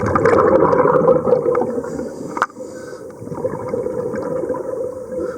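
Water churning and gurgling, with scattered small clicks. A sharp knock about two and a half seconds in, after which the churning goes on more quietly.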